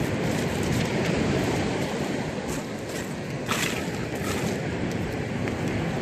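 Steady rush of wind on the microphone mixed with surf from the sea, with a couple of short crackles about halfway through.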